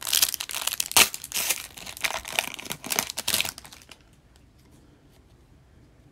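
Foil wrapper of an O-Pee-Chee Platinum hockey card pack being torn open and crinkled in the hands, a dense crackle for about three and a half seconds with one sharp rip about a second in.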